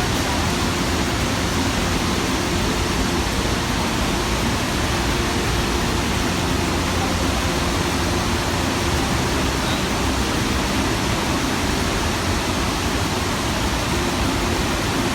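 Steady roar of the Iguazú Falls, water pouring down in an even, unbroken rush.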